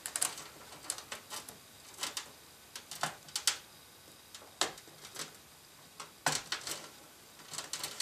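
Irregular sharp plastic clicks and taps as an 8-pin CPU power connector and its cable are worked into place inside a computer case, ending in a quick cluster of clicks as the connector snaps into the motherboard's socket.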